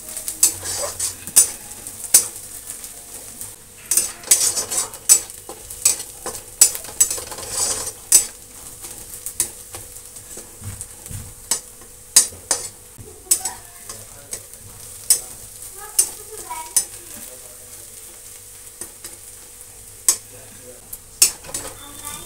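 Steel spatula stirring and scraping chopped onions frying in ghee in a steel kadai. The steady sizzle runs under sharp clicks of the spatula striking the pan, which come thick and fast for the first half and more sparsely after that.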